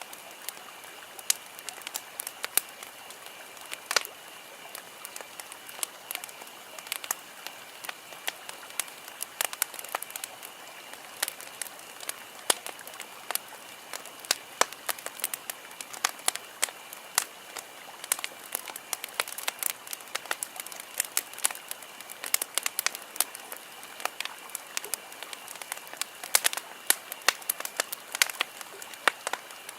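Wood campfire crackling: a steady soft hiss under frequent, irregular sharp pops and snaps from the burning logs.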